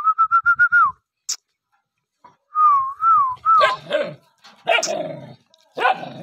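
Dog barking in short, harsh yips about three times in the second half. Before them come two stretches of a high, wavering, whistle-like tone, the first with a quick warble.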